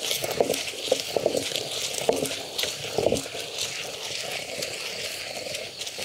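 Hand-turned stone pestle grinding in a traditional stone mortar, crunching and scraping through grated coconut and dried red chillies for chutney. Uneven grinding strokes come about twice a second at first, then settle into a steadier rasp.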